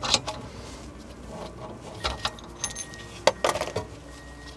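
Scattered clicks and clinks of small parts and tools being handled while a diesel heater's glow plug assembly is taken apart, about six sharp knocks in all, the loudest a little past three seconds in.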